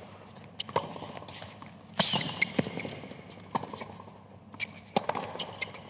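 Tennis rally on a hard court: sharp pops of rackets striking the ball and of the ball bouncing, coming about every second or so.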